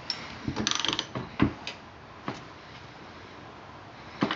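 Ratchet wrench clicking on the crankshaft of an Onan B43G engine as it is turned over by hand, with a few separate metal clunks, mostly in the first second and a half.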